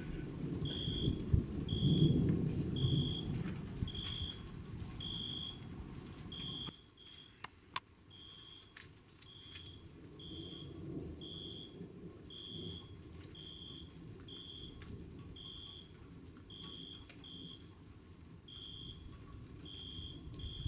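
Low rumbling thunder, loudest about two seconds in, that breaks off abruptly about a third of the way through. A short high-pitched chirp repeats about once a second throughout, and a single sharp click comes just after the rumble stops.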